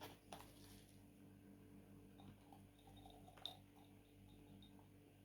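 Near silence: room tone with a few faint taps and clicks, the sharpest one about three and a half seconds in.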